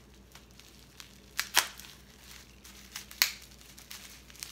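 Plastic bubble wrap being cut open and handled, crinkling, with three sharp cracks: two close together about a second and a half in, one after three seconds.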